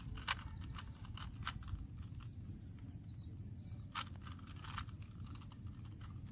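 A few scattered plastic clicks of a Rubik's Cube being turned by hand, over a steady high-pitched insect drone and faint outdoor rumble.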